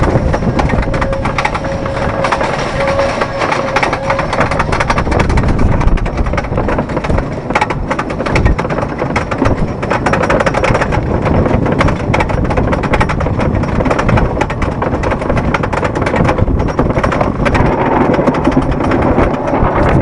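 Wooden roller coaster train climbing its chain lift hill: the lift chain and anti-rollback ratchet clacking rapidly and steadily.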